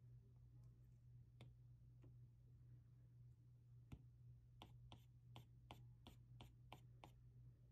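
Faint taps of an Apple Pencil's plastic tip on the iPad's glass screen: a single tap, another about four seconds in, then a quick run of about ten taps, three or four a second.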